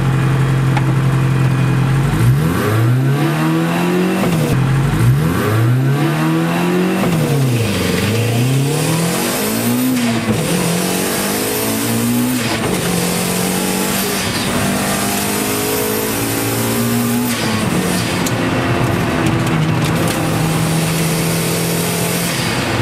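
Turbocharged Toyota MR2 AW11 engine under hard acceleration, heard from inside the cabin. The engine holds a steady note for about two seconds, then its revs climb and drop sharply again and again, then settle into steadier running with smaller rises and falls. A faint high whistle sits above it for several seconds in the middle.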